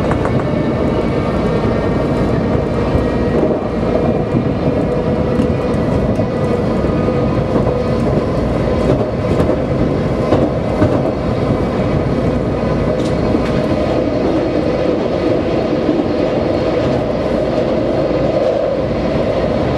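Washington Metro Red Line subway train running, heard from inside the front car: a steady rumble of wheels on the rails. A faint whine fades out in the first second or so.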